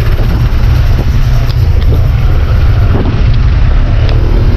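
Wind buffeting the microphone: a loud, steady low rumble with a few faint clicks.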